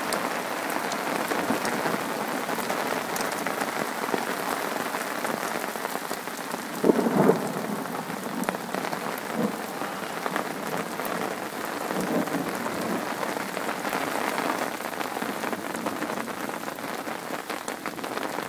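Heavy rain pouring onto a lake's surface and the muddy bank, a steady hiss of drops. One brief louder thump comes about seven seconds in.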